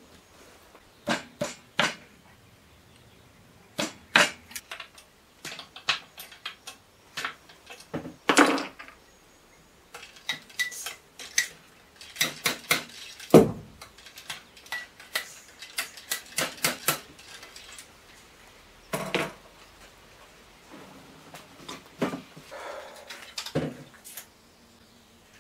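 A .44 calibre over-under percussion double rifle being loaded from the muzzle: sharp, irregular metallic clicks and clinks as the ramrod works in the barrels, seating the patched round balls. Near the end come smaller clicks as percussion caps are pressed onto the nipples.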